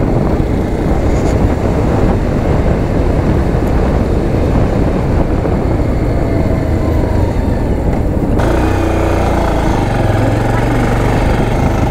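Motorcycle running on the move, its engine under a steady rush of riding noise. About eight seconds in the sound shifts and a steadier low engine hum comes through more clearly.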